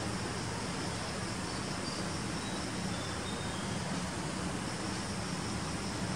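Steady background noise: an even hiss with a low hum and a constant high-pitched buzz, with no sound from the kittens.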